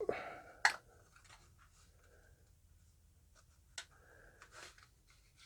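Faint rustling and scraping of a small cardboard product box as a flashlight is slid out of it, with two sharp clicks or taps, the first under a second in and the second near the middle.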